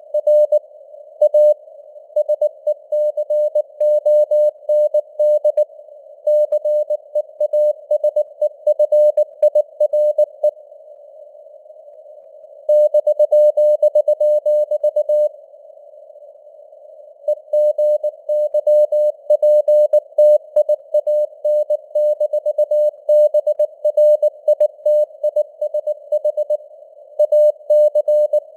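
Morse code (CW) sent at 19 words per minute as a single-pitched beeping tone keyed in dots and dashes, over a narrow band of simulated radio static, with slow fading in signal strength. Twice the keying pauses for about two seconds, leaving only the hiss.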